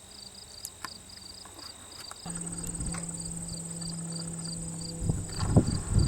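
Insects chirping in an even pulsing rhythm, about three or four chirps a second over a steady high whine, in an open field. About two seconds in, a low steady hum joins them, and near the end louder rustling noises take over.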